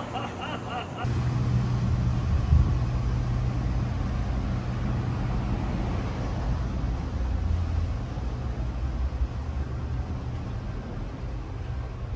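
Steady low drone and rumble of a train, heard inside the carriage. It starts abruptly about a second in, after a brief voice.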